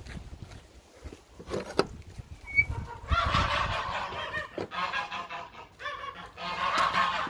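A flock of geese honking and cackling, in two long bouts from about three seconds in, after a couple of short knocks.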